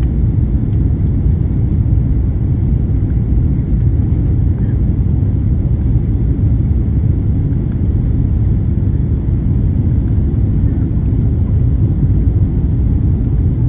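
Steady low rumble of an airliner in flight, heard inside the cabin: engine and airflow noise, even and unchanging.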